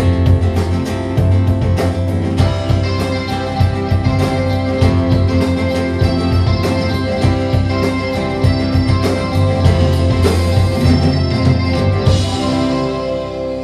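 Live rock band playing an instrumental passage with no vocals: a steady drum beat, bass guitar and sustained chords. About twelve seconds in a cymbal crashes and the chord rings out as the playing winds down.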